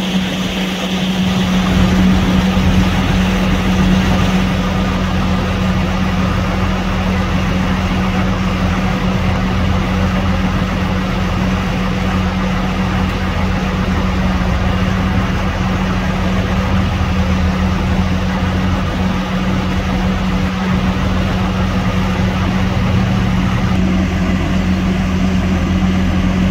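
Heavy truck engine running steadily at a constant speed, with a strong low hum.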